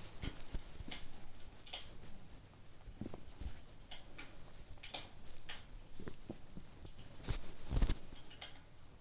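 Wood fire crackling: irregular small snaps and pops, with a louder cluster of pops about three quarters of the way through.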